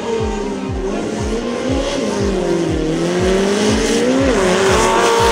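Engine of a 4x4 dirt drag racing vehicle revving hard, its pitch sagging and climbing again, with a quick dip near the end. A steady bass beat from background music runs underneath.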